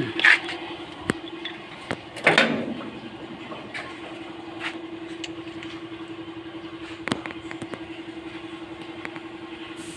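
Hand tools clanking on metal, with a louder scraping clatter about two and a half seconds in and a few single clicks, over a steady, finely pulsing machine hum.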